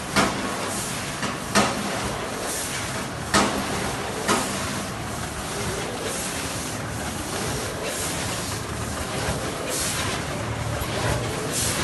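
Snack packing line with a bucket elevator running: steady mechanical noise broken by sharp clacks in the first few seconds and short hisses later on.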